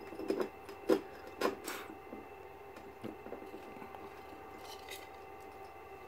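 A golden hamster clambering up a wooden box and over into a plastic tub of paper bedding: a few light knocks and a short scrape of claws in the first two seconds, the sharpest about a second in, then fainter scratches and clicks.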